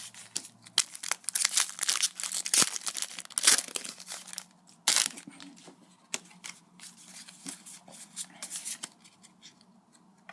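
A Pokémon booster pack wrapper being torn open and crinkled, with dense crackling for the first five seconds. It then gives way to sparser, softer rustles and clicks as the cards are handled.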